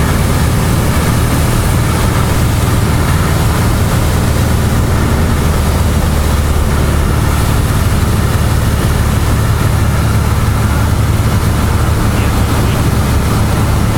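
Cessna 172's piston engine and propeller running steadily in flight, a loud, even low drone heard from inside the cabin.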